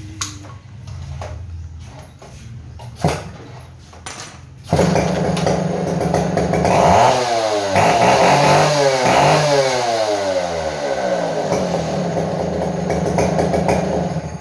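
A Stihl 070 two-stroke chainsaw engine, just fitted with a new piston assembly, starts after a few sharp knocks about five seconds in. It is revved up and down several times, runs steadily, then cuts off near the end.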